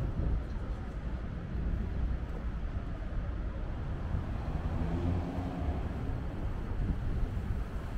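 Steady low rumble of a moving vehicle, with a faint pitched tone coming in about halfway through.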